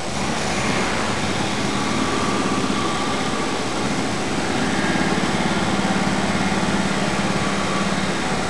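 Steady engine drone, like distant motor traffic, with a low hum that grows a little stronger past the middle.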